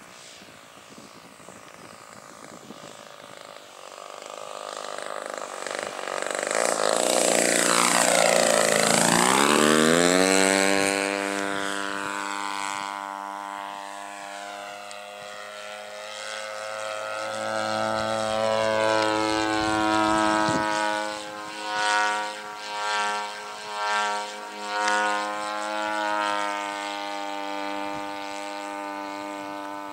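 Engine and propeller of a radio-controlled Yak-54 model airplane in flight. It grows louder as the plane comes in and drops sharply in pitch as it passes close overhead about nine seconds in, then drones on at a steady pitch. About three quarters of the way through it swells and fades four times in quick succession.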